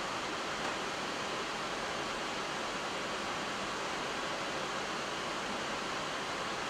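Steady, even rushing hiss of background air noise on the flight deck of an Airbus A340-300 on final approach.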